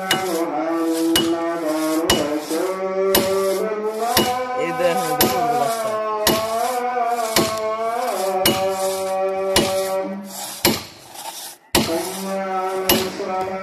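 Melodic instrumental music, with sharp strikes about once a second from axes chopping into a standing tree trunk. The music briefly drops away near the end while the strikes go on.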